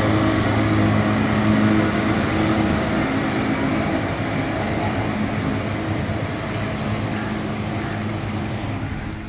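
Outboard motor of a small flat-bottomed canal work boat running steadily under way, a low hum over a churning wash, fading gradually as the boat moves away.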